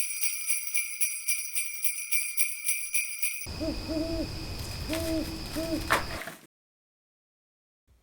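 Sleigh bells jingling in a fast, even shake for about three and a half seconds. The bells give way to an owl hooting several times over a steady hiss, which cuts off suddenly.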